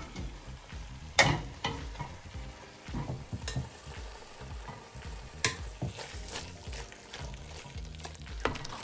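A utensil stirring a sizzling pan of mashed potato and spiced chickpea masala, scraping and knocking against the pan, with one sharp knock about a second in.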